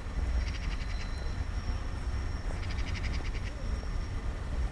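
Low rumble of a diesel freight train approaching slowly. Over it, a short high chirping trill comes in bursts of about a second, twice, roughly two and a half seconds apart.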